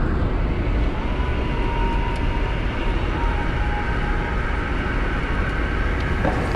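Steady road and wind noise inside a Toyota Yaris cabin at highway speed, heavy in the low rumble, with a faint steady whistle coming in about a second in.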